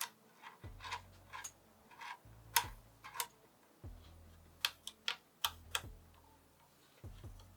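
Irregular light clicks and taps of small computer parts being handled, as an M.2 SSD is fitted to a motherboard.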